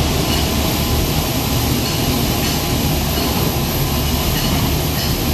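Steady factory noise of an electroplating line: an even, dense rushing hiss over a low hum, with no change in level.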